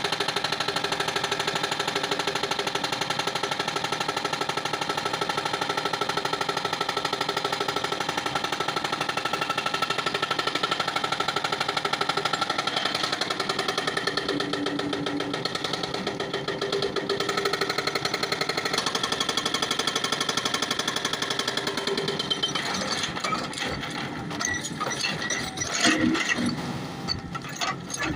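Power hammer chipping stone with rapid, continuous blows. About 22 seconds in the pounding turns uneven, with separate knocks.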